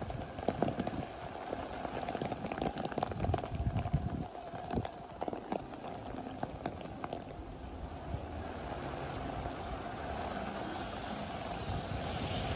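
Footsteps on wet pavement, about two a second, over a steady hiss of rain. The steps stop about halfway through and the hiss grows slowly louder near the end.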